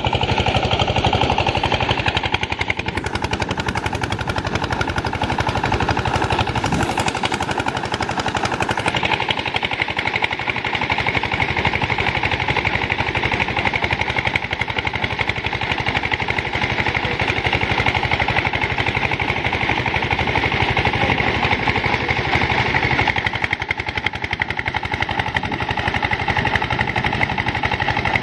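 Rice threshing machine running steadily, its engine keeping up a rapid, even pulsing beat.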